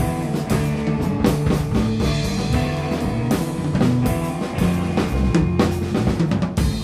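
Instrumental rock band playing live: a drum kit driving a busy beat of kick and snare hits over sustained bass and guitar notes, in a rough mix of the drum and scratch tracks.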